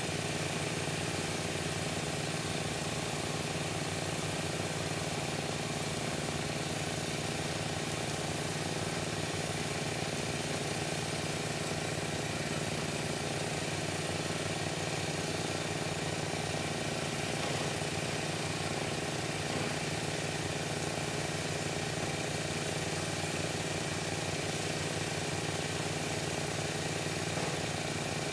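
Gas-engine pressure washer running at a steady speed, its engine hum under a constant hiss of high-pressure water spraying concrete.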